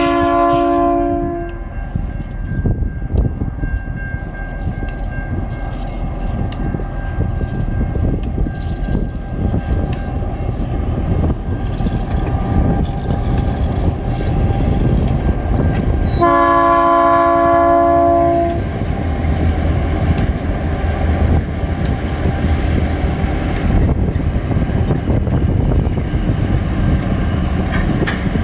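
A multi-unit lashup of diesel freight locomotives, led by TasRail 2054, passes close by. A multi-note chord horn sounds for about a second and a half at the start and again for about two seconds just past the middle. Engine rumble and wheel noise run under it, and the rumble deepens in the second half as the locomotives go by.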